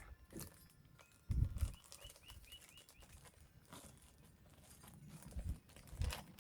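Work pants being unwrapped and handled: packaging and fabric rustling and flapping, with a soft thump about a second and a half in and two smaller ones near the end.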